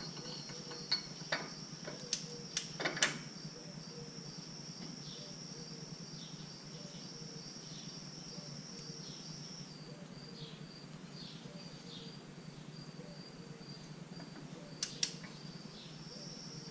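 Sharp metal clicks and clinks from a wrench and socket on a front-hub spindle nut being tightened, several in the first three seconds and a couple more near the end. A steady high chirping of crickets runs underneath.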